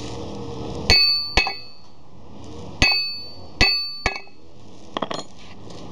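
A hammer tapping a steel sprocket and hub on a moped wheel to seat it. Five sharp, ringing metallic blows come at an uneven pace, followed by a few light clicks near the end.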